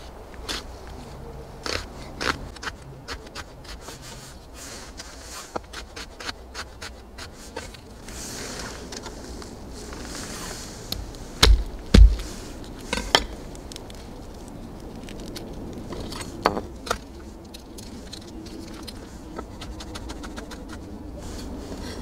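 Chef's knife cutting an onion on a wooden cutting board: irregular crisp clicks of the blade through the onion onto the board. About halfway through come a few heavier thumps, the loudest sounds, as the knife is pressed and knocked against the board.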